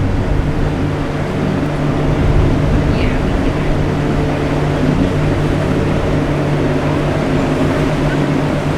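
A boat engine running at a steady drone, with a low, even hum.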